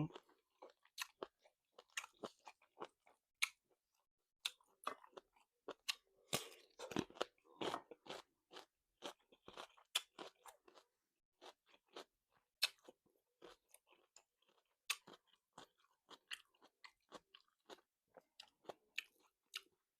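Close-miked chewing of tough, chewy salt-cured chicken: a long run of small, irregular wet clicks and crunches from the mouth.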